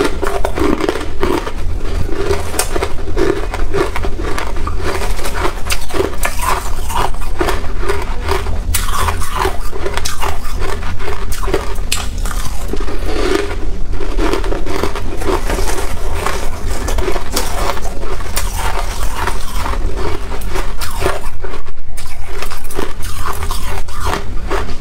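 Close-miked crunching and chewing of soft freezer frost, bitten in clumps, with fingers scraping more frost from the bowl between bites. A steady low hum lies underneath.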